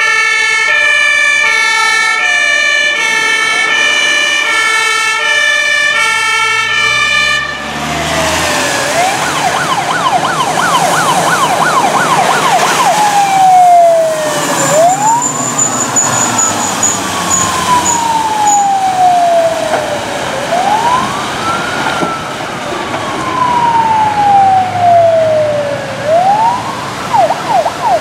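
Fire engine siren on an emergency run: a two-tone hi-lo alternating about twice a second, then about 8 s in it switches to a fast yelp, followed by a slow wail that rises quickly and falls away over several seconds, with a burst of fast yelp again near the end.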